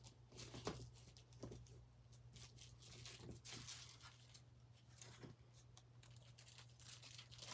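Faint, irregular crinkling and rustling of a plastic bag with glue in it being handled and squished.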